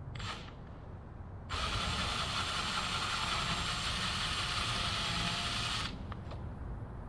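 Cordless drill running steadily for about four seconds, starting and stopping abruptly, spinning its bit to spot a mark for a tail mounting-bracket hole.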